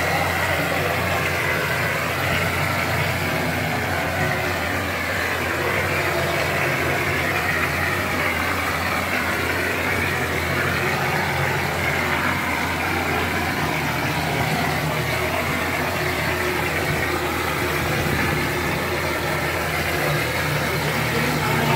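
Traditional plaster spraying machine running steadily while spraying plaster, a constant low machine hum under an even hiss.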